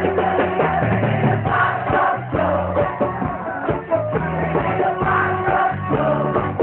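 Live rock band playing: electric guitar, bass and drums with a singer, the sound muffled and boomy.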